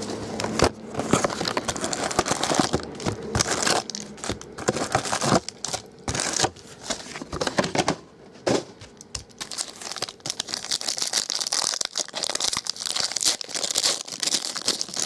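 Plastic wrap and foil-wrapped card packs crinkling and rustling in irregular bursts as a box of baseball cards is opened and its jumbo packs are taken out and stacked, with a few small knocks of packs set down on the table.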